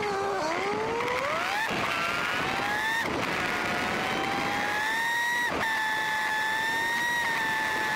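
Honda Nighthawk 750's inline-four engine pulling under acceleration, its note rising with two brief breaks in the first three seconds like gear changes, then holding steady at cruising speed. Wind and road rush run underneath.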